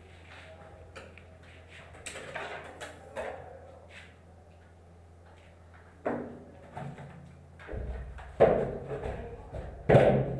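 Irregular knocks and clatter, with the two loudest bangs near the end, over a steady low hum.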